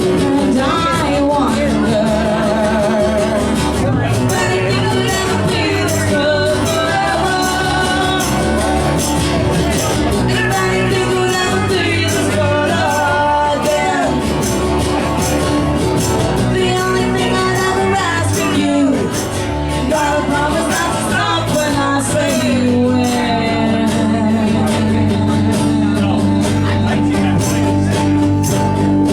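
A rock band playing live, a singer's voice carrying the melody over guitar and steady low notes.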